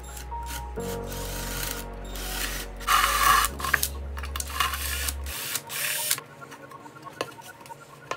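Drill with a hole saw boring through a plywood board in several bursts, the cutting noise ending about six seconds in. Background music plays underneath.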